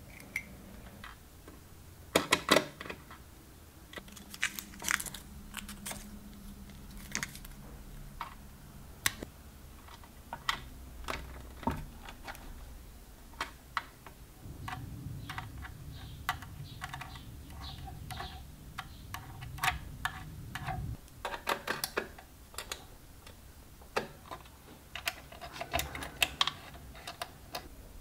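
Light metallic clicks and taps from an aluminium valve shield and its base on the chassis being handled and fitted, scattered irregularly, with a stretch of soft rubbing in the middle.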